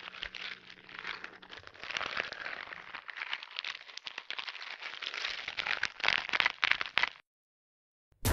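Dense crackling, crunching sound effect full of sharp clicks, which cuts off dead about seven seconds in. After a second of silence comes one sudden loud hit with a deep rumbling tail.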